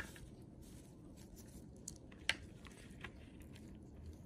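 Faint crackling of a crayfish's hard chitin exoskeleton being cracked and peeled off the abdomen by gloved fingers, with a few sharp snaps, the loudest a little over two seconds in.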